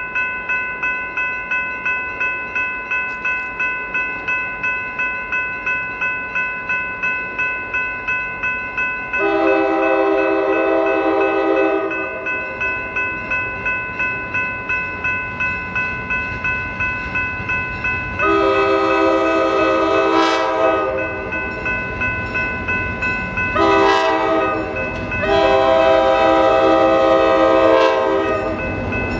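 Diesel locomotive horn sounding the grade-crossing signal, two long blasts, a short one and a final long one, which mark the train's approach to a road crossing. Under it a bell rings steadily, about two to three strokes a second.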